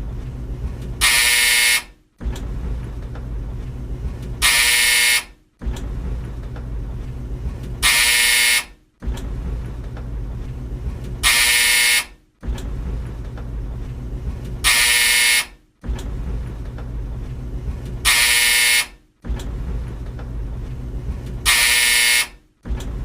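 Old tumble dryer running with a steady low rumble, cut every three and a half seconds or so by its loud buzzer sounding for under a second, followed by a short gap of silence. The same rumble-buzz cycle repeats seven times, like a loop.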